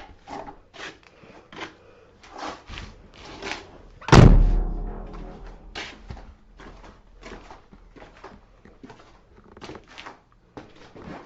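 Scattered knocks and clicks from things being handled and set down, with one heavy thump about four seconds in that rings on briefly.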